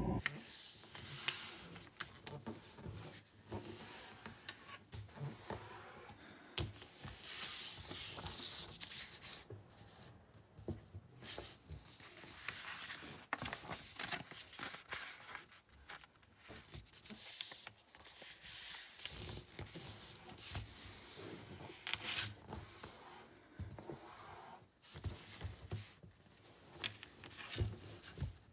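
A sheet of white paper being folded and creased by hand: irregular rustling and crinkling as the paper is lifted and bent, with fingers sliding and pressing along the folds.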